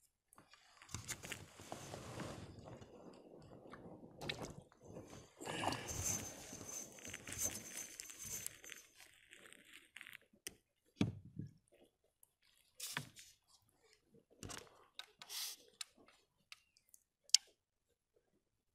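Quiet, on-and-off rustling, crunching and clicking of hands handling a caught fish and fishing line close to the microphone, busiest in the first half and thinning to a few sharp clicks later.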